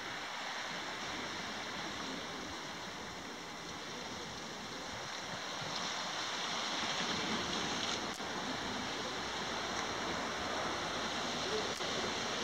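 Steady wash of the sea against the rocky shore below, an even hiss that grows a little louder about halfway through, with a couple of faint clicks.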